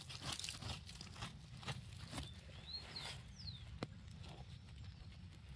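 Gloved hand and a small metal digging tool scraping and raking loose dry soil, with faint irregular crunches and patter of falling dirt while digging out a detector find.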